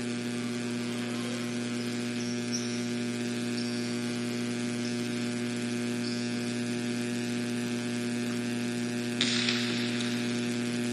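Steady low electrical mains hum with a buzz of overtones and faint hiss on the recording's soundtrack, with a brief patch of hiss about nine seconds in.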